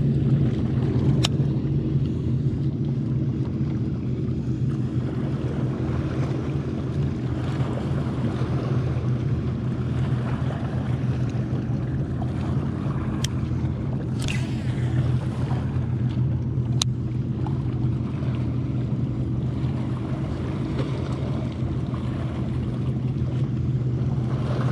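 Steady low motor hum of a boat, with water and wind noise on the microphone and a few sharp clicks scattered through it.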